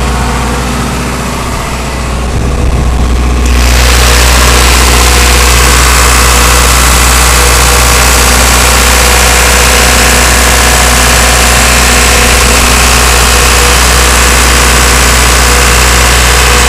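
John Deere 4045 four-cylinder turbo diesel of a Triton generator set running at a steady, constant speed with a strong low hum. It turns louder and brighter about three and a half seconds in, then holds steady.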